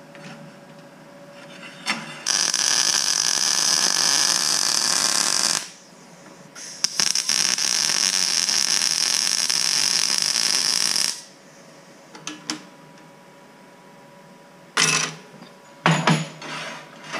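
MIG welder arc crackling on steel tubing in two welds of about three and four seconds, with a short pause between them. A few short metal clinks and knocks follow near the end.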